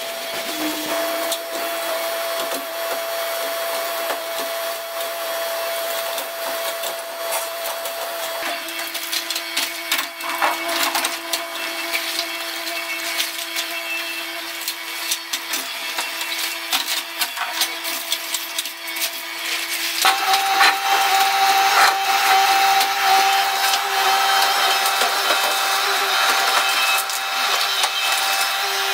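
Mini excavator with a hydraulic crusher jaw demolishing brick walls: a steady engine-and-hydraulic whine under the frequent crack and clatter of breaking masonry and falling debris. About twenty seconds in, the whine steps up in pitch and everything gets louder.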